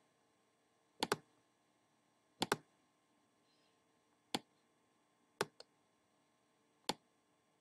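Clicking of a computer pointing device: about six short, sharp clicks, some in quick pairs, spaced roughly a second or more apart.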